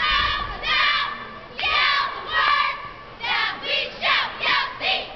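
Cheerleading squad shouting a cheer in unison, in short rhythmic bursts that come faster in the second half.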